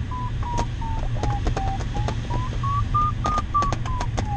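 Glider variometer beeping in a climb: short, evenly spaced beeps about three a second. Their pitch drifts down, rises to its highest about three seconds in, then falls again, tracking the changing strength of the thermal lift. A steady low rush of airflow runs underneath.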